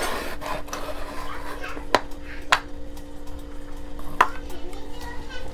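A few scattered sharp clicks and taps from things being handled on a kitchen counter, over a steady low hum.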